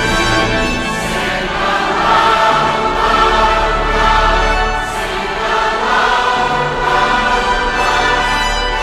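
A choir singing a hymn with accompaniment, in long held chords.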